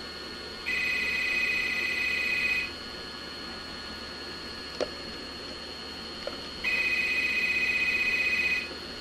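Desk telephone ringing twice, each ring a two-second trill with about four seconds of pause between, and a single click during the pause.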